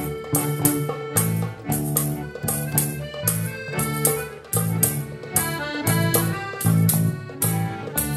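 A klezmer band playing live. The accordion leads, with clarinet, tambourine and drum kit over a steady beat.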